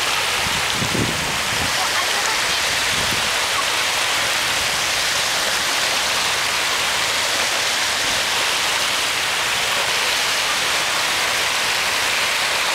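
Small ocean waves washing into the shallows and onto the shore, a steady hiss of water.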